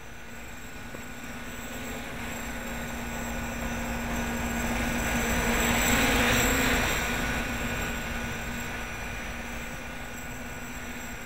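Homemade 550-size quadcopter with 8x5 propellers in flight, its propellers giving a steady hum. Under it a rushing noise swells to its loudest about six seconds in, then fades.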